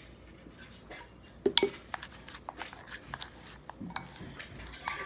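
Small clinks and knocks of kitchenware being handled, a scattered string of them with the loudest knock about a second and a half in.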